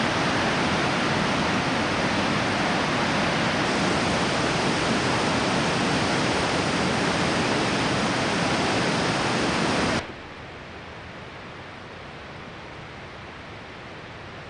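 Steady roar of a large waterfall and its whitewater, Mesa Falls, cutting off abruptly about ten seconds in to a much fainter steady hiss.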